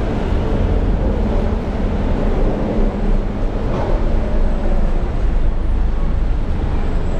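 Busy city street traffic: a steady low rumble of road vehicles, including double-decker buses and a lorry in the road alongside.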